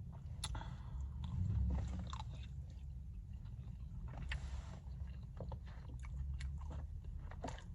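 A person chewing food close to the microphone, with scattered small wet smacks and clicks.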